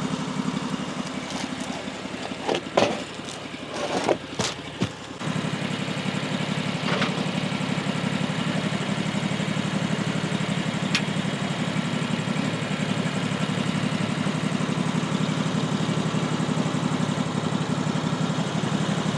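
Sawmill's gasoline engine running steadily, with a few knocks and short sounds in the first five seconds; about five seconds in the engine gets louder and then holds an even note.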